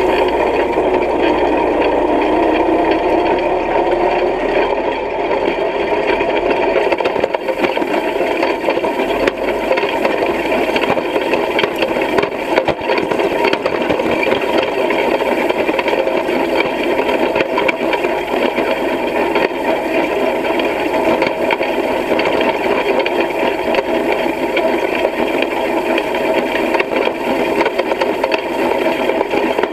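Side-delivery hay rake rattling steadily as it is pulled through cut hay, close up: the clatter of its turning reel of spring tines and metal frame, with many small clicks throughout.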